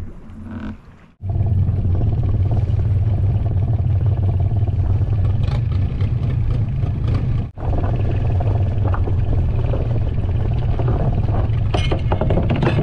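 Boat engine running steadily underway, a loud low drone that starts about a second in and breaks off for a moment past the middle.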